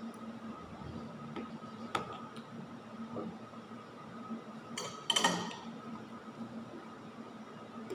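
Dishes and a spoon handled on a table during a meal: a light tap about two seconds in and a brief clatter of tableware about five seconds in, over a faint steady hum.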